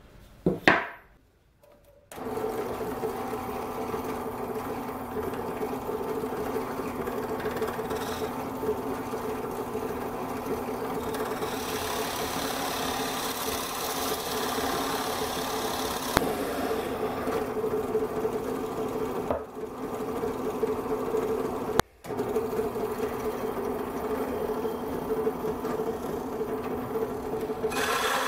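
A knock about a second in, then a benchtop drill press runs steadily, its hole saw cutting into plywood: a constant motor hum with the rasp of the teeth in the wood. The sound drops out for an instant about two-thirds of the way through.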